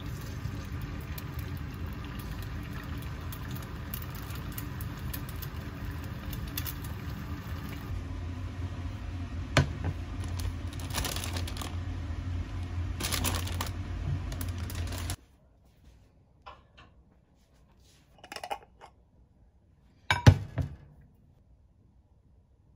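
An egg frying in oil in a nonstick pan: a steady sizzle with fine crackling over a low hum, and a sharp click about ten seconds in. It cuts off abruptly about fifteen seconds in, and a few light clinks and knocks of a ceramic plate and glass jar on a wooden tray follow, the loudest about twenty seconds in.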